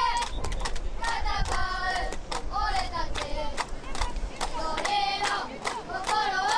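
Many children's high-pitched voices shouting and cheering together, with scattered hand claps, as a youth football crowd supports a team.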